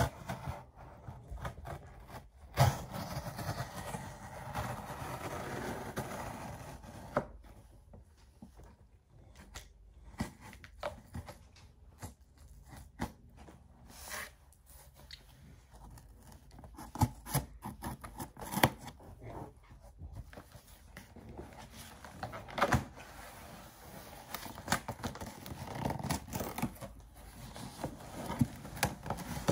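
Scissors cutting the packing tape on a cardboard shipping box, then the box being handled and its flaps worked open. This comes through as scraping noises broken by scattered sharp clicks and knocks.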